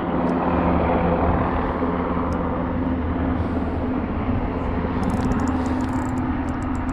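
Steady engine drone with a constant low hum, with a few faint clicks near the end.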